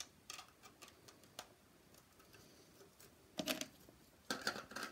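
Faint scattered clicks and taps of close handling, with two louder short rustles about three and a half and four and a half seconds in.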